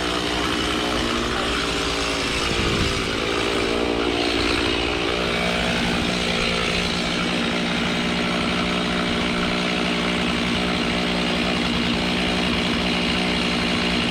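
Chainsaw running at high speed while cutting magnolia wood, its pitch wavering for the first few seconds and then holding steady.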